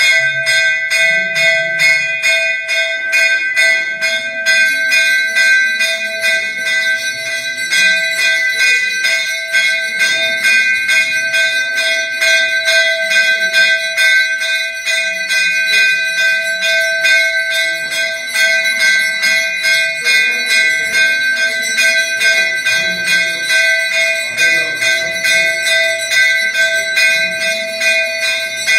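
Temple bell rung rapidly and continuously, its ringing tones held steady under quick repeated strikes, as during the lamp offering (aarti) at the shrine. Faint low murmur of people beneath.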